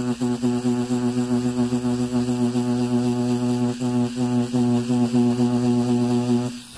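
Rotary tattoo machine running with a steady, low-pitched electric buzz as its round-liner needle shades, cutting off about six and a half seconds in.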